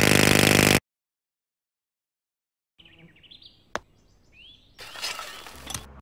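Pneumatic jackhammer hammering rapidly, cutting off abruptly under a second in. After a silence, faint birds chirp with one sharp click, and a short burst of noise comes near the end.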